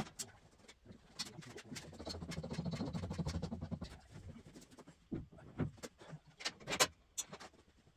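Scattered clicks, taps and knocks of objects being handled, with a low rumble swelling for a couple of seconds from about two seconds in.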